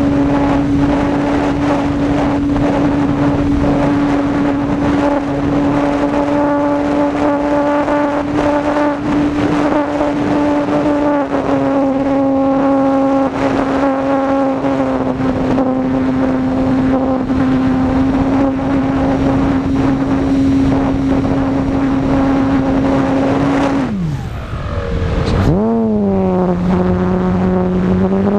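Brushless electric motor and propeller of an E-flite Apprentice S 15E model airplane running at steady cruise throttle, a single whining tone over rushing wind noise. About 24 seconds in the throttle is cut and the pitch falls away almost to nothing, then it climbs again as power comes back on.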